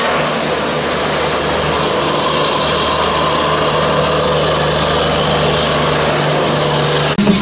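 Train coaches rolling past close below: a steady, loud rumble and hiss of wheels on the rails, with a steady low hum under it. The sound cuts off abruptly near the end as electronic music begins.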